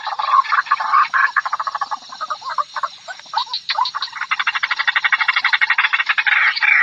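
White-breasted waterhen calling. Choppy croaking notes quicken into a fast, even rattle of about a dozen clicks a second, and louder call notes return near the end.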